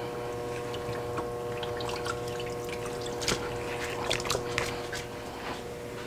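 Water dripping and trickling, with scattered small wet clicks and knocks, over a steady electrical hum.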